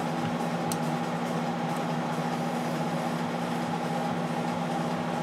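Steady machine hum with a few constant tones, the kind of drone a shop fan or heater makes, and a faint click about a second in.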